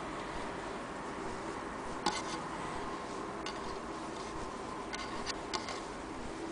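Hands threading an old sewing machine: a few short, faint clicks and light rubbing of thread and metal parts, one about two seconds in and a little cluster around five seconds, over a steady faint background hum.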